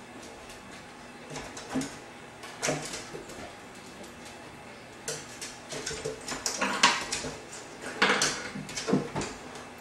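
Dogs moving about on a hardwood kitchen floor beside open wooden drawers: a scatter of sharp clicks and knocks that comes thickest in the second half.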